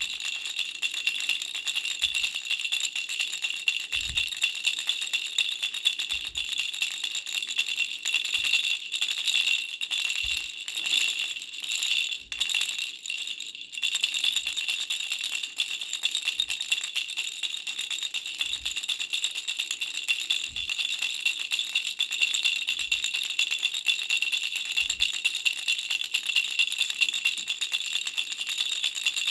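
Pink butterfly baby rattle shaken continuously: a fast, steady jingling with a bright ringing tone. It thins briefly about twelve seconds in, then carries on.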